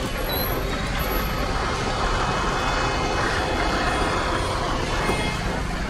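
Diesel locomotive hauling a train toward the microphone: a steady low engine rumble.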